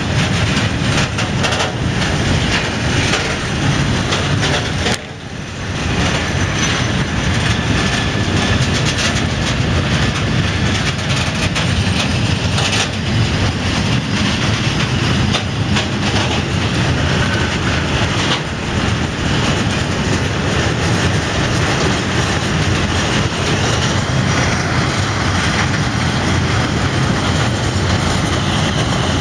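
Freight train of covered grain hopper wagons rolling past close by: a steady, loud rumble and clatter of steel wheels on the rails, dipping briefly about five seconds in.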